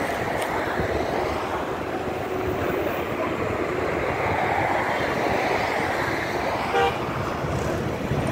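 Steady road traffic noise from cars driving past, with one short car-horn toot near the end.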